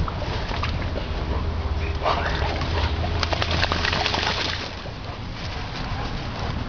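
A Boerboel dog splashing and paddling in a pond, the water sloshing and spattering hardest between about two and four and a half seconds in.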